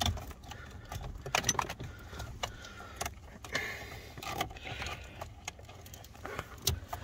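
Plastic wiring-harness plugs clicking and rattling as they are handled and fitted under a car's dashboard: a string of irregular sharp clicks and light rattles.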